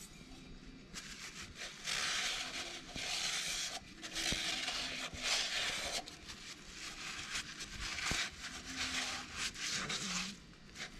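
Rag wiping and scrubbing the oily cylinder bores of a Yanmar 4JH3E diesel block, in repeated rubbing strokes of one to two seconds each, with a few light knocks.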